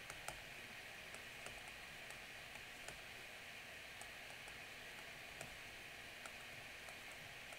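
Light, irregular ticks of a stylus tapping a tablet screen while numbers are handwritten, about a dozen, the loudest about a third of a second in, over a faint steady hiss of microphone noise.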